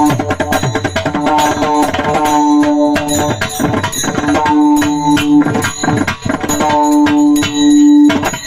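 Varkari kirtan music: held melody notes over a steady drum rhythm, the drum strokes sliding down in pitch, with small hand cymbals jingling.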